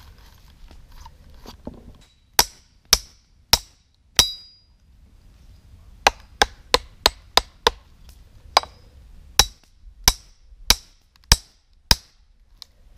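Hatchet chopping into a log. Four spaced blows come first, one of them about four seconds in with a brief metallic ring. Then a quick run of about six strikes, and six more spaced about two-thirds of a second apart.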